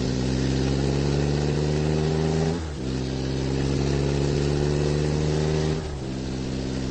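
Dubbed-in truck engine sound effect running steadily, with its pitch dipping briefly about two and a half seconds in and again near six seconds.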